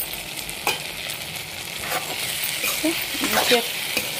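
Chopped tomatoes and onions sizzling in oil in a pan over a high flame. A spatula scrapes and knocks against the pan a few times while stirring.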